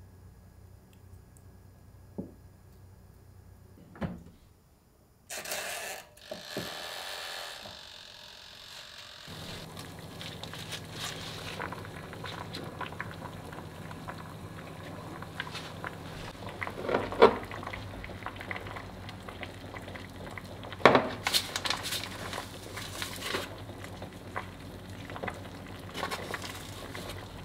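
Broth simmering in an aluminium yukihira pan on a gas stove, with a steady bubbling hiss and crackle that starts about nine seconds in, after a short burst of noise. Bok choy is tipped in from a bamboo basket, with sharp knocks against the pan twice in the second half.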